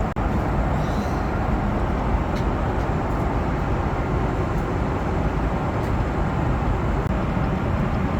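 Steady airliner cabin noise: the even rush of engines and air around the fuselage, heavy in the low range, with a brief drop right at the start.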